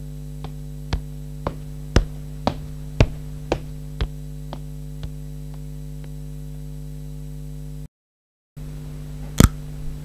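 Footsteps, about two a second, growing louder as the walker approaches the microphone and then fading as he walks away, over a steady hum. After a short break, a single sharp crack near the end: dry pasta crunched in the mouth as a bone-breaking foley effect.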